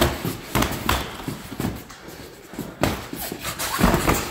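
Boxing gloves thudding against gloves and body in a sparring exchange, with shoes scuffing and stepping on the ring mat. There are several sharp thuds, the loudest about four seconds in.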